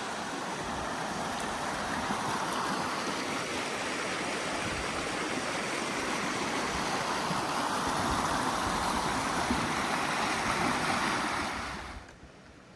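Creek water rushing steadily over rocks, dropping away suddenly near the end.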